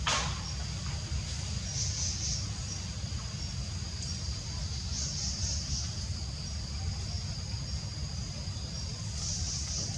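Insect chorus in forest: a steady high-pitched trill that swells in short pulses every few seconds, over a steady low rumble, with a brief sharp click right at the start.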